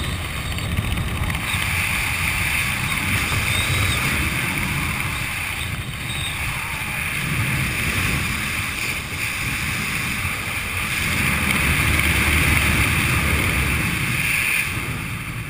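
Wind buffeting the camera's microphone during a descent under a parachute canopy: a continuous rushing rumble that swells and eases, with a steady hiss over it.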